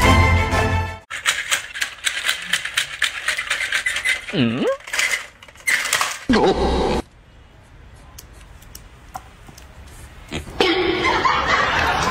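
Background music cuts off about a second in. Then come rapid clicking from a battery-powered toy dinosaur and a person's voice with laughter.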